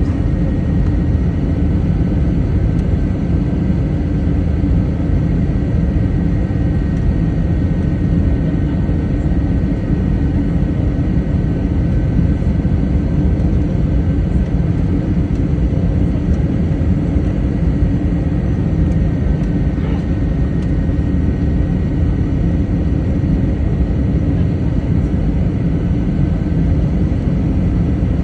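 Steady roar of a jet airliner's engines and rushing air heard from inside the passenger cabin, with a faint steady high whine over it.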